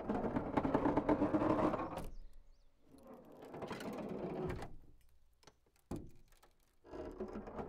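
Creaking sound effects in three long drawn-out creaks, the first the loudest, with a short sharp click about six seconds in.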